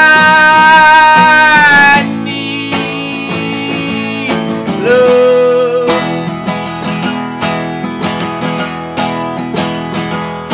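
A man holds a long sung note over strummed Gibson acoustic guitar until about two seconds in. The guitar then strums on alone, more quietly, with a short wordless vocal note sliding up and held for about a second near the middle.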